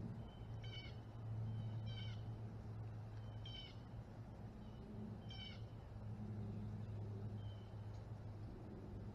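Short meow-like animal calls repeating every second or two, four clear ones in the first six seconds and fainter ones after. A steady low hum runs underneath.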